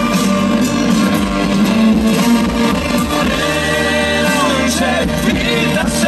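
Live rock band playing through a PA: electric guitars, bass, drums and keyboards in a passage between sung lines.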